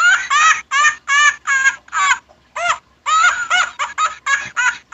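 High-pitched giggling laughter: a quick run of short squeaky syllables, about three a second, with a brief break a little past the middle.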